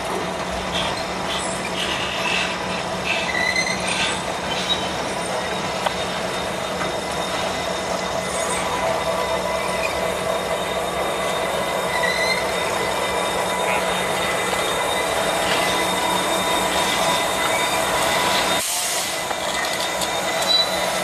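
Freight cars rolling past on jointed track, their wheels and flanges squealing in steady high tones over the rumble and clatter. Near the end a diesel locomotive, placed as distributed power within the train, comes alongside.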